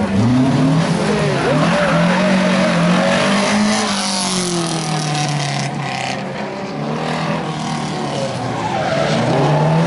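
Talbot Sunbeam rally car's four-cylinder engine revving hard as the car drifts, its pitch rising and falling, with the tyres squealing and skidding under wheelspin.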